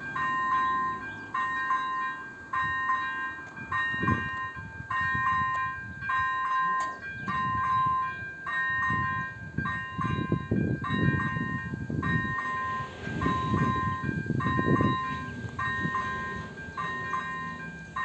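Level-crossing electronic warning bell ringing in a regular repeating ding, about one and a half to two strikes a second, signalling an approaching train while the barriers come down. Low rumbling noise swells under it from about ten to fifteen seconds in.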